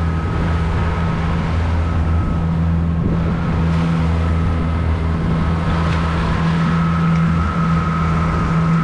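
Boat's motor running steadily under way, a low even hum with a faint higher whine, over the rush and splash of water along the hull.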